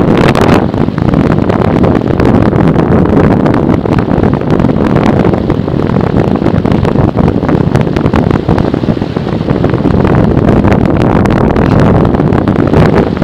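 Loud, steady wind rush buffeting the onboard camera of a radio-controlled model plane in flight, mixed with the noise of its motor and propeller.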